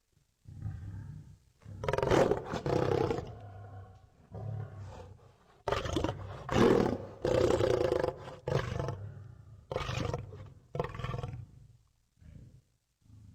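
Sound-effect Allosaurus roars and growls: a run of about eight separate calls with short gaps between them, the loudest roars about two seconds in and again from about six to eight seconds in, with shorter, quieter calls near the end.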